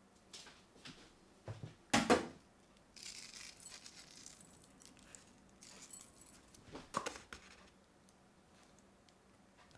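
Quiet kitchen handling sounds as seasonings are added to a glass mixing bowl of diced raw chicken: a sharp knock about two seconds in and another about seven seconds in, with soft rustling and sprinkling between them.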